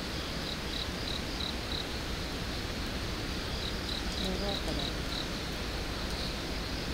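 A cricket chirping: a run of short, high chirps about three a second, pausing for a couple of seconds in the middle before starting again, over a steady background hiss.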